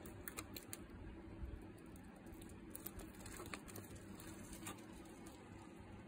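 Faint, scattered light ticks and taps, like cockroaches' legs scuttling over a plastic tub, over a low steady background rumble.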